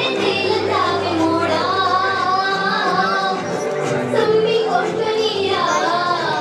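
Dance song playing: a high singing voice over instrumental accompaniment, the melody wavering and sliding between held notes.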